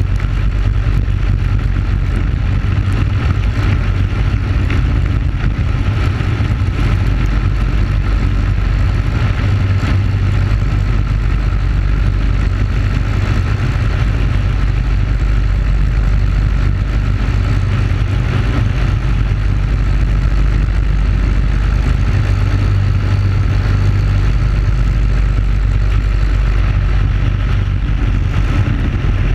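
Briggs & Stratton Animal single-cylinder four-stroke kart engine running steadily at racing speed, heard through an onboard camera with a heavy wind rumble on the microphone. The pitch stays level with no shifts or sudden sounds.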